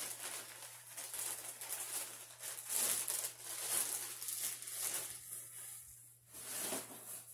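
Bubble wrap and a clear plastic bag crinkling and rustling as they are pulled open and peeled off a plastic model horse by hand. The rustling comes in irregular bursts, eases off about five seconds in, and gives one more rustle near the end.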